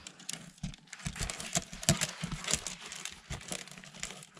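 A cat pushing into a cardboard box cave: irregular scratching, rustling and tapping of paws and body against the cardboard.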